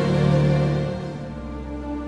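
Background music with long held notes and chords, growing quieter about a second in.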